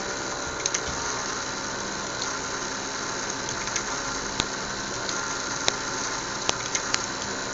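Small fischertechnik electric motors spinning their propellers, a steady whirring hum with a faint high whine. A few sharp clicks come through it.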